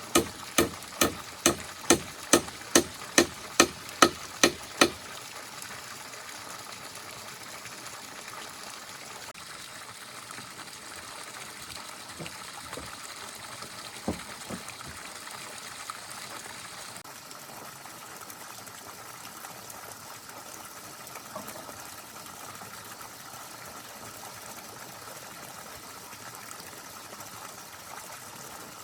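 Rapid, evenly spaced chopping strikes, about two and a half a second, that stop about five seconds in. A steady hiss follows, with a couple of faint knocks.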